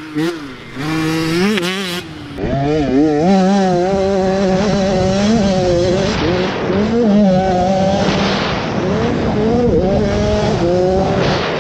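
65cc two-stroke motocross bike's engine revving high and dropping back again and again as the rider works through the gears, picked up by a helmet-mounted camera.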